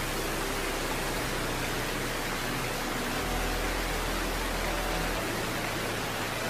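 Methalox liquid rocket engine firing at steady thrust in a static hot-fire test: an even, unbroken rushing noise with a faint low hum underneath.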